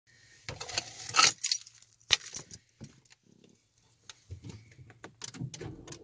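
Car keys jangling and clicking together in a string of short sharp chinks as a hand works the key at the ignition.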